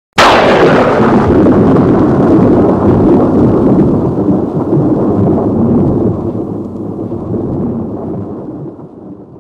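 A sudden loud boom that rolls on as a long, thunder-like rumble, fading away slowly over the following seconds: a sound effect for an animated outro logo.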